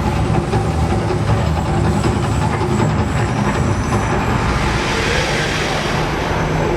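Loud, steady rumbling roar of the Mirage volcano eruption show, with a rushing hiss that swells about two-thirds of the way through.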